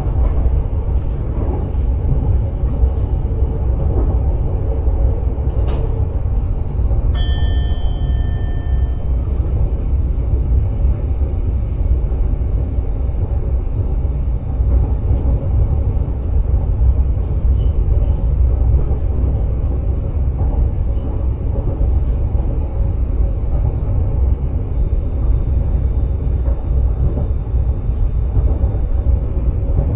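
Dutch NS Sprinter electric train running along the line, heard from inside the driver's cab: a steady, deep rumble of the wheels on the rails and the running gear. About seven seconds in, a short beep sounds for about two seconds.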